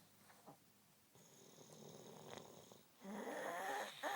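A sleeping woman snoring. A faint breath comes first, then one loud snore about three seconds in.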